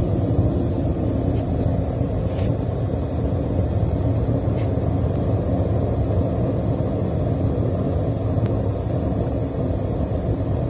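Single-burner forge running with a steady, even rushing noise while a steel billet heats in it; a few faint clicks come through on top.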